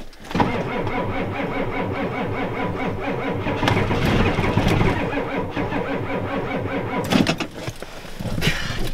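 Ford 7.3 IDI diesel engine cranking on its starter for about seven seconds after a shot of ether in bitter cold, without catching, then stopping. The owner puts the hard start down to weak batteries and fuel that has probably gelled.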